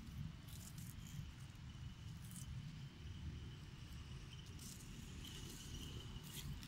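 Faint outdoor ambience: a thin, steady high insect buzz, stronger for about a second near the end, over a low rumble, with a few brief rustles.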